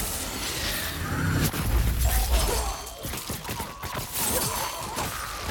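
Film sound effects for magic being channelled: crackling and shattering noise with a deep low boom about two seconds in, then a run of sharp cracks.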